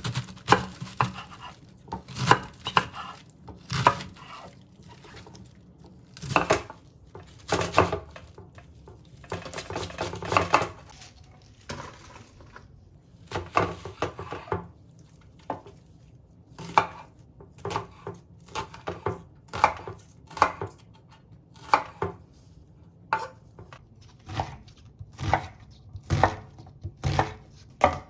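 Knife chopping vegetables on a cutting board: uneven runs of sharp knocks with short pauses between them.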